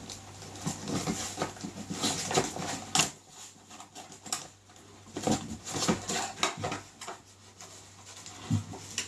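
A small cardboard box being handled and opened by hand: irregular rustling, scraping and light clicks of the cardboard lid and flaps.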